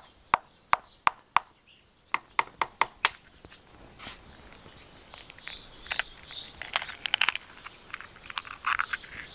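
A two-year-old dried-out chicken egg being knocked against a hard surface to crack it: two quick runs of sharp taps, about four and then five. From about four seconds in, fainter crackling and clicking follow as the shell is broken and picked apart by hand.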